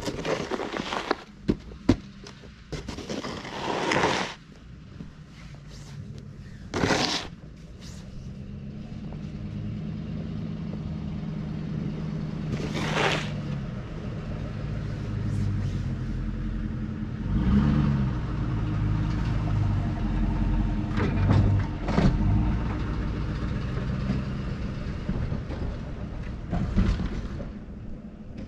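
A 2009 Ford F-250 plow truck's engine running steadily, getting louder about a third of the way in. Several brief harsh sounds cut in over it.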